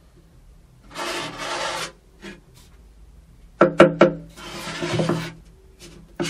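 A flat wooden strip scraping back and forth over a plywood board, mixing two-part epoxy, in two long scraping strokes. Three sharp knocks come together a little past the middle, and a single click comes near the end.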